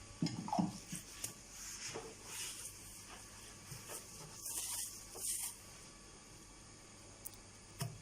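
Cleaning strokes across a kitchen countertop: a series of short swishes, the longest about four and a half to five and a half seconds in, with a few light knocks and two sharp clicks near the end.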